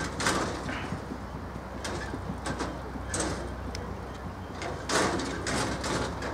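Outdoor ambience at a football pitch: a steady low rumble with several short, noisy bursts scattered through, and no clear voices.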